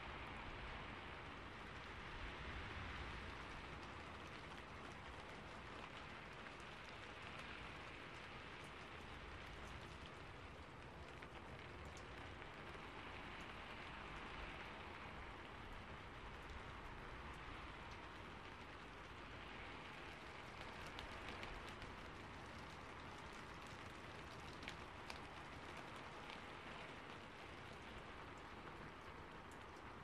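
Rain beating on a roof: a steady hiss of rainfall with scattered sharper ticks of individual drops.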